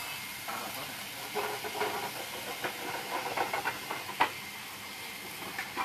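Food sizzling in a frying pan on a portable gas burner, a steady hiss, with a utensil scraping and clinking against the pan through the middle and one sharp knock a little after four seconds in.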